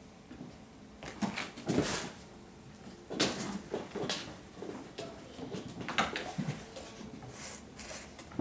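Bengal kittens scampering and tussling on a hard floor among shoes and a toy: irregular light knocks, patters and rustles, with a few sharper knocks some seconds apart.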